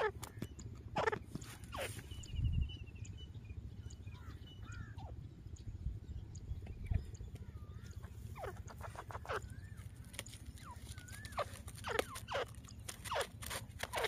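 Caged grey francolins calling: short, sharp high calls in clusters, few in the middle and coming thick and fast in the second half. Faint chirps of small birds and a steady low rumble run under them.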